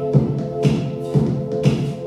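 Electronic dance music played from vinyl records on DJ turntables, with a steady beat at about two beats a second.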